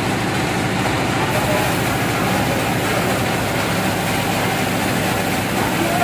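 Sawmill machinery running steadily with no log being cut.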